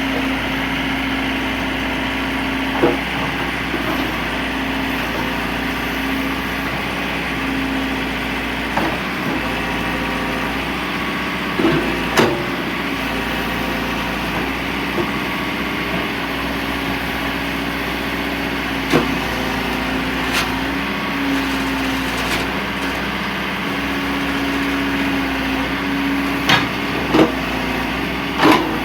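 John Deere 310L EP backhoe loader's four-cylinder diesel engine idling steadily, with a handful of brief knocks or clicks over it, several close together near the end.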